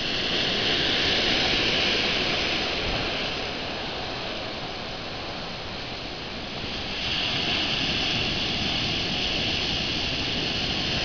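Ocean surf breaking and foaming, a steady hissing rush of water that grows louder about seven seconds in as a wave breaks.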